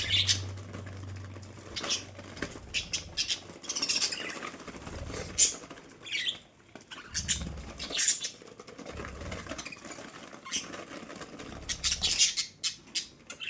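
Budgerigars chattering and squawking: short, high-pitched calls in irregular bursts, busiest at the start and again near the end.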